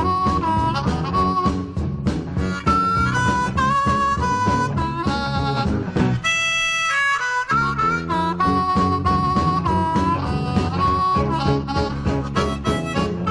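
Instrumental break in a blues-rock song: a harmonica solo of held, bending notes over a band with a steady beat. About six seconds in, the bass and drums drop out briefly under a higher harmonica phrase, then come back.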